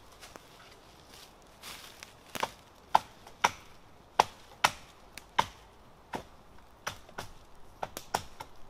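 Repeated chopping strokes of a blade into the base of a green sapling, about two sharp cracks a second with a short ring. They begin a couple of seconds in, after a little rustling in the dry leaves.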